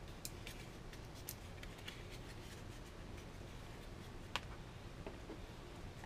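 Faint small clicks and ticks of a laptop's 2.5-inch hard drive and its plastic mounting parts being handled, with one sharper click about four seconds in.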